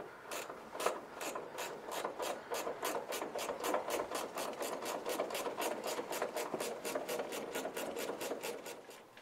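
Ratchet wrench clicking in a steady run, about four to five clicks a second, as the nut on the top mount of a Vespa GTS300's rear shock absorber is undone while its threaded rod is held with a 6 mm Allen key. The clicking stops near the end.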